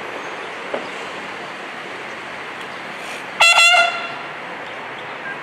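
Bugle of a military drum-and-bugle band sounding one short, loud note a little over three seconds in. A steady outdoor noise hiss lies underneath.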